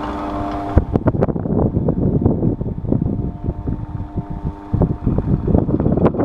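Electric fan running with a steady hum. About a second in, the hiss cuts off abruptly and an uneven, fluttering rumble takes over, like air buffeting the microphone.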